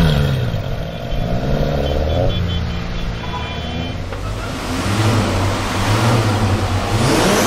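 Modified car engines exhausting as the cars pull away: a rev rises and falls right at the start, the engines then run at low revs, and over the last few seconds the exhaust grows louder and rougher as a car accelerates.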